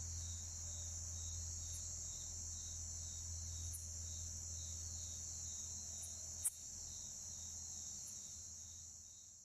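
Bucrates conehead katydids calling: short, sharp, high chirps about every two seconds over a continuous high-pitched insect trill, with one louder click about six and a half seconds in. The sound fades near the end.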